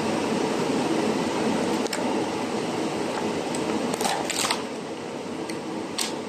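Crinkling and crackling of a clear PVC blister shell and its paper card being handled and pulled at, in a cluster a few seconds in and again near the end. Under it runs a steady machine hum that drops a little in level just after the first cluster.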